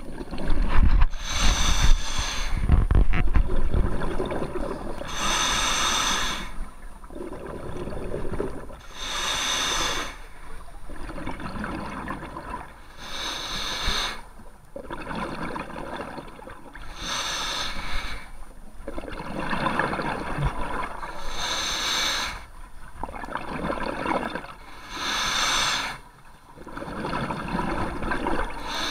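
Scuba diver breathing through a regulator underwater in a steady cycle about every four seconds: a duller inhale through the regulator, then a hissing rush of exhaled bubbles past the camera. A few low thumps in the first three seconds.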